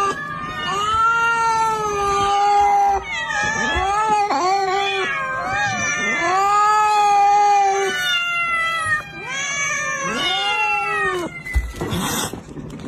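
A cat yowling in a string of long, drawn-out calls, each rising and then falling in pitch. A short scuffing noise comes near the end.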